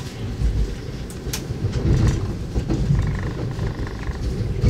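A train running nearby with a low, steady rumble and a few faint clicks.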